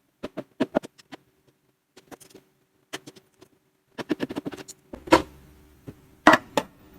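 Scattered clicks, knocks and rattles of a three-pole magnetic contactor's housing and parts being taken apart by hand. A quick run of rattling clicks comes about four seconds in, and a few sharper knocks follow near the end.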